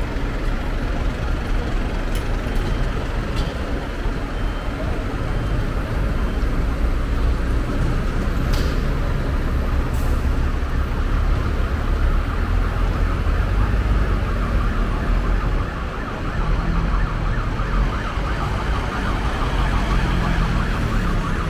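Street noise dominated by the low, steady rumble of heavy diesel engines running, with an emergency siren sounding in the background that becomes clearer near the end.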